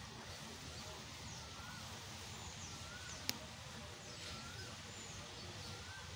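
Birds calling over a steady background hiss: faint high chirps and a short wavering call repeated about every second and a half. A single sharp click comes about three seconds in.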